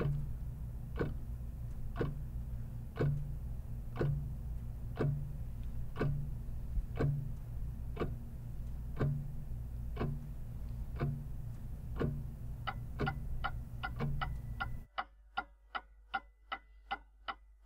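Clock ticking once a second over a steady low hum. About twelve seconds in, the ticks quicken to roughly three a second. Near the end the hum stops, and the quick ticks carry on with a faint ringing tone.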